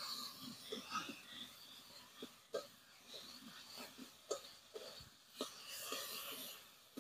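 Faint sizzling of onion-tomato masala with chilli and ginger-garlic paste frying in an aluminium wok, with irregular scrapes and taps of a metal spatula against the pan as it is stirred. The sizzle is louder at the start and again near the end.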